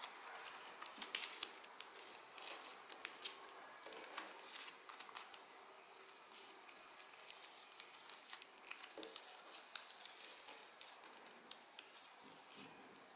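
Origami paper crinkling and crackling as fingers fold and crease it, with many faint, irregular small clicks and rustles.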